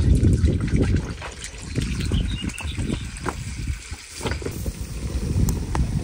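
Water gushing and splashing out of the end of a black plastic irrigation pipe onto a hand and stones, with a low rumble of wind on the microphone.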